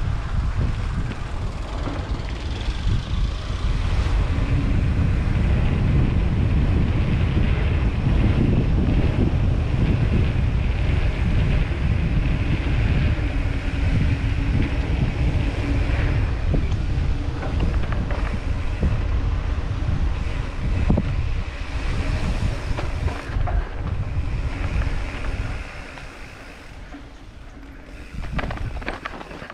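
Wind buffeting the microphone of an action camera on a mountain bike riding downhill, over a rushing trail noise from the bike rolling. It eases off for a couple of seconds near the end.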